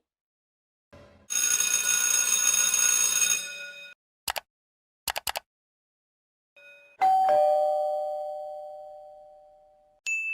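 A string of short sound effects. The most prominent is a two-note ding-dong doorbell chime about seven seconds in, a higher note then a lower one, ringing down over about three seconds. Before it come a two-second noisy burst with steady tones through it and a few short clicks, and near the end a brief high ding.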